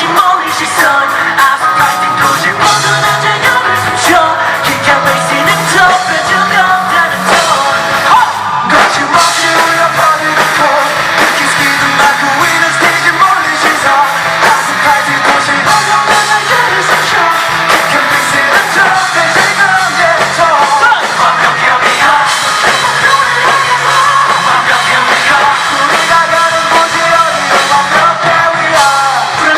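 Loud live rock band performance: a male lead vocalist singing over the band.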